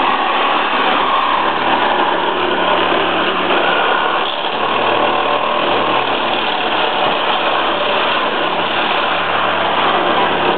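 Handheld power tool cutting through the sheet-metal windscreen pillar of an old Nissan Sunny, running steadily under load and then stopping abruptly.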